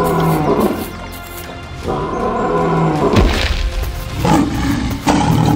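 Cartoon sound effects over background music: two long animal roars, one at the start and one about two seconds in, then heavy thuds about three, four and five seconds in.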